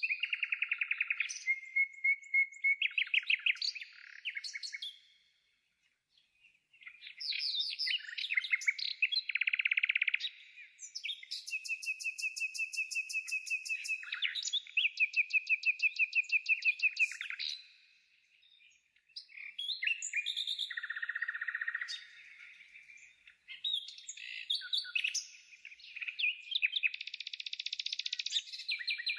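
Songbird singing in varied phrases of rapid trills, chirps and whistled notes, with two short pauses.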